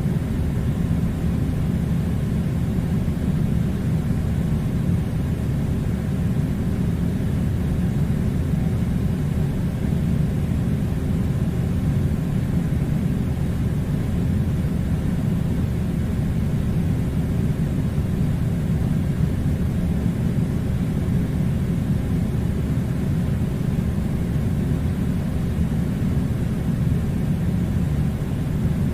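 Air conditioner running: a steady, even low rumble with a faint hiss above it, unchanging throughout.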